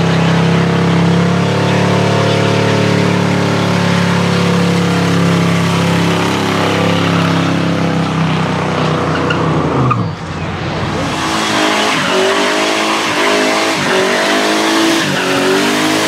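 Car burnouts: an engine held at steady high revs with the rear tyres spinning for about ten seconds, then, after a sudden change, another car's engine revving up and down as its tyres spin and squeal.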